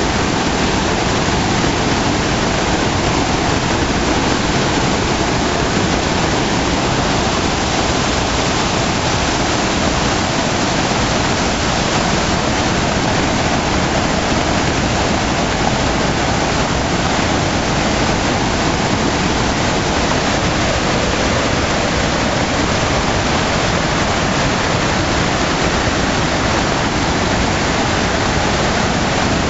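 Floodwater rushing in a flooded creek or channel, a loud steady noise that does not change.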